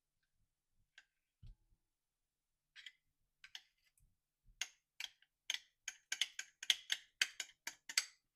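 A series of short, sharp clicks or taps, a few scattered at first, then quickening to about three or four a second over the last few seconds.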